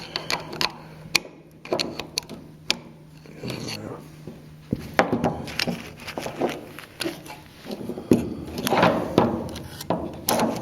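Irregular sharp clicks, taps and rubbing of a car ignition lock cylinder and switch housing being worked by hand with the key, trying to turn it to the correct position so it seats.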